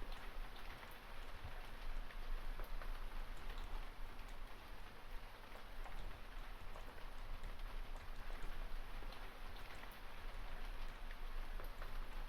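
Steady rain falling, an even hiss with scattered faint clicks of drops.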